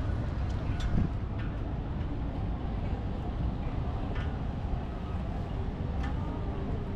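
Steady low rumble of city ambience, with faint distant voices and a few light clicks.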